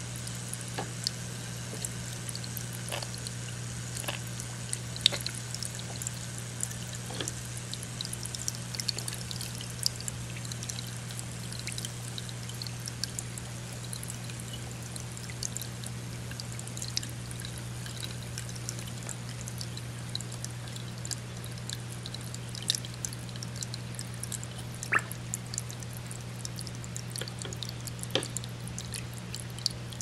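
Aquarium filter running: water pouring and trickling steadily over a constant low hum, with scattered small ticks and splashes, a few standing out near the middle and near the end.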